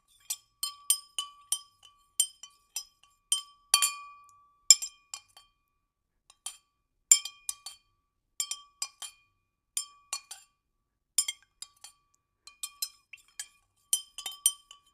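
An irregular run of light, ringing glassy clinks, often two or three close together, a few per second, with short pauses between the runs.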